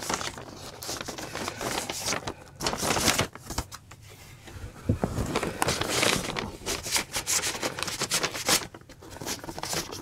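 Paper record sleeves and cardboard album jackets rustling and scraping as vinyl records are handled, in irregular bursts with a few sharp taps.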